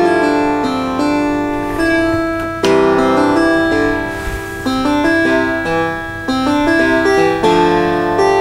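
Home keyboard's harpsichord voice playing back a sequenced tune sent to it over MIDI from an Amiga sequencer: plucked-sounding chords and melody notes with crisp attacks, the chords changing every second or so.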